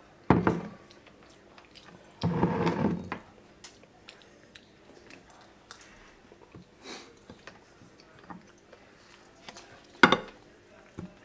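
Table eating sounds: spoon and fork knocking and scraping on plates and a wooden board, with small scattered clicks. There is a sharp knock just after the start and another near the end, and a short voiced sound lasting about a second at around two seconds in.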